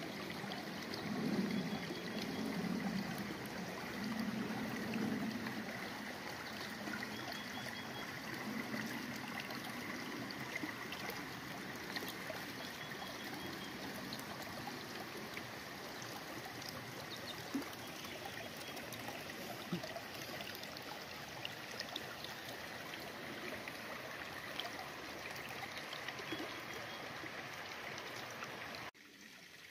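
Shallow mountain creek flowing steadily over sand and rocks, with heavier gurgling swells in the first few seconds.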